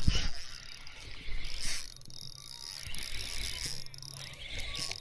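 Daiwa Saltist 2500 spinning reel being wound to retrieve a lure, a steady mechanical whirring of the rotor and gears. There is a louder knock right at the start and another brief burst a little before two seconds in.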